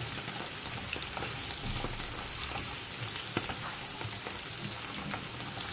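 Halved button mushrooms sizzling in hot oil in a non-stick frying pan: a steady hiss with scattered crackles, and a plastic spatula stirring them.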